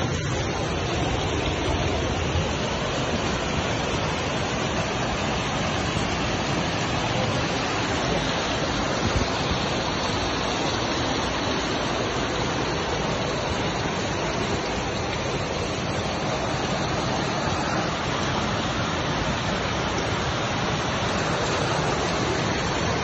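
Floodwater rushing down a street, a steady, unbroken rush of water.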